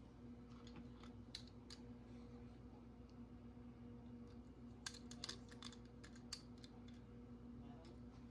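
Faint scattered clicks and taps of die-cast toy cars being handled at the track, most of them about five to six and a half seconds in, over a steady low hum.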